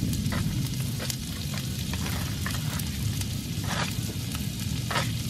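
Butter melting and sizzling on a hot griddle pan among browned pieces of meat, with scattered crackling pops about once a second over a low steady rumble.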